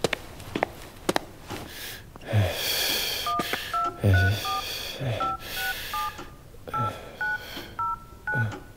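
Phone keypad tones as a number is dialled: about eleven short two-note beeps at an uneven pace, starting a little over three seconds in. A few light clicks come before them.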